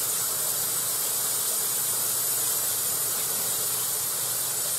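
Browned ground beef sizzling in a large stockpot on a hot electric burner: a steady, even hiss.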